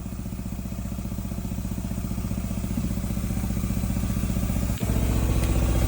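An engine running steadily with a fast, even pulse, growing gradually louder, with a brief dip about five seconds in.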